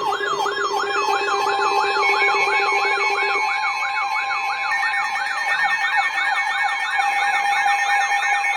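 Several electronic sirens sounding at once in fast rising-and-falling sweeps, about four a second, layered over steady alarm tones.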